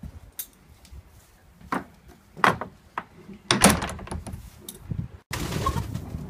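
Stable door being shut: a few knocks, with the loudest rattling clatter about three and a half seconds in, then a steady rush of wind noise on the microphone.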